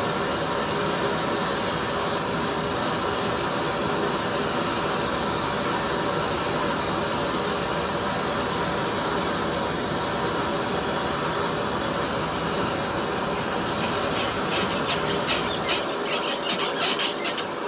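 Bernzomatic handheld gas torch burning with a steady hiss as it heats an old soldered copper joint to melt the solder. From about 13 seconds in, irregular crackling and sizzling joins in, as water on the hot joint boils off in steam.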